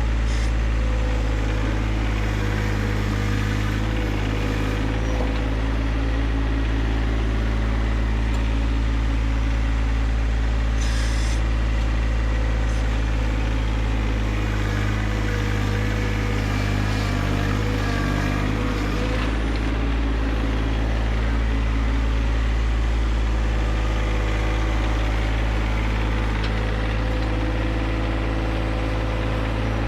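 John Deere 1025R compact tractor's three-cylinder diesel running steadily under load as the loader is worked, its pitch wavering slightly now and then.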